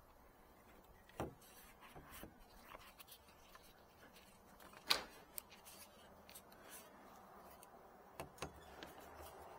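A handful of faint clicks and light taps as a chrome cab roof light and its rubber gasket are handled and set against a truck's metal roof, the sharpest tap about five seconds in.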